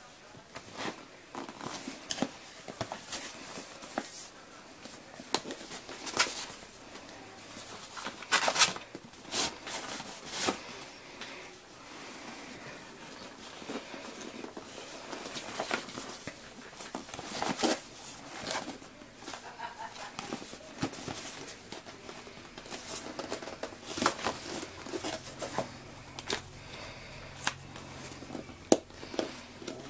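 A cardboard retail box being handled and unpacked: irregular scrapes, rubs and clicks of card as the outer sleeve slides off and the box is opened.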